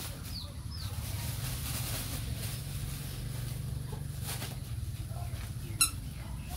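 Steady low motor hum, with two short falling bird chirps within the first second and a single sharp click near the end.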